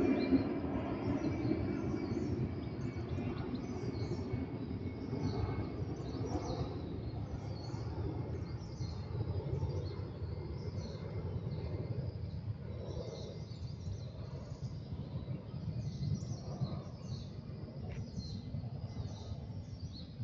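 Outdoor woodland ambience: faint high bird chirps repeating throughout over a steady low rumble that is louder at the start and eases off.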